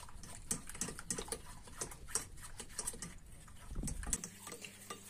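Small whisk stirring cornstarch into milk in a stainless steel bowl, dissolving the starch: quick, irregular clicks and scrapes of the whisk against the metal.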